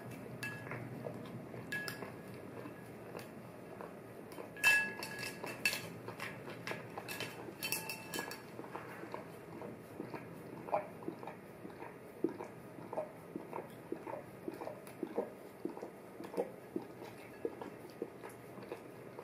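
A golden retriever eating cereal from a bowl. A spoon clinks and rings against the bowl in two clusters, about five and eight seconds in, the first being the loudest. A long run of small crunches and clicks from the dog chewing and mouthing the cereal follows.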